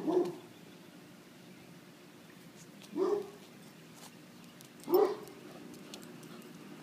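Akita puppy giving short barks: a quick pair at the start, then single barks about three and five seconds in.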